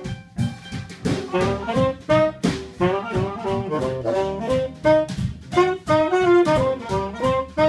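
Swing jazz band playing an upbeat tune: a horn section of saxophone and brass carries the melody in short phrases over a drum kit keeping a steady beat.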